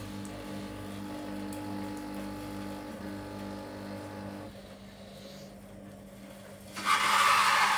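Capsule coffee machine brewing: a steady, pulsing pump hum, then, near the end, a sudden loud hissing rush as the liquid starts pouring into the cup.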